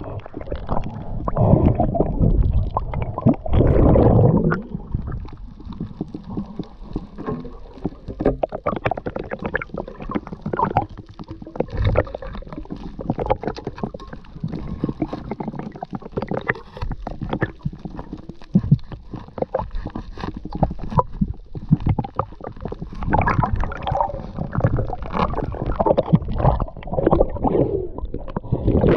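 Underwater sound picked up by a freediver's camera: muffled rushing and gurgling of water, swelling a few times, with scattered sharp clicks and crackles throughout.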